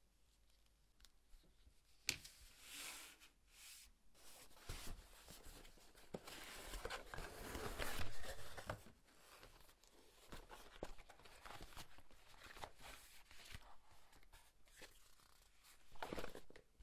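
Leather offcuts being rummaged through in a cardboard box: irregular rustling and scraping of stiff leather pieces against each other and the cardboard. It is loudest in the middle, with another short burst near the end.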